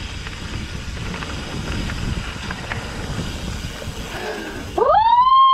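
Mountain bike rolling over a rough trail, with wind rumbling on the helmet camera's microphone. Near the end this cuts to one loud, high-pitched call or whistle that rises and then falls.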